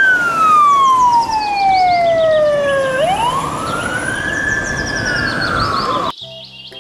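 Fire engine siren wailing over truck engine and road noise. Its pitch slides slowly down for about three seconds, then rises and falls again, and the sound cuts off suddenly about six seconds in.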